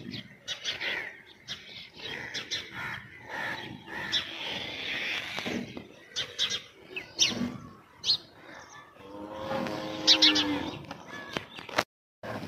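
Morning birds chirping in short, sharp calls throughout, with a drawn-out farm-animal call about nine seconds in. The sound drops out briefly near the end.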